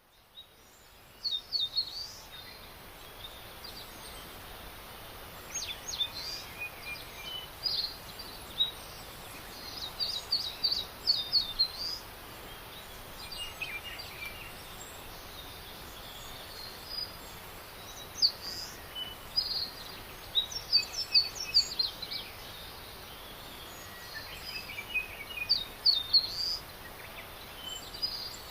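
Several birds singing and chirping over a steady background hiss: clusters of quick high chirps and short falling whistled notes come and go throughout.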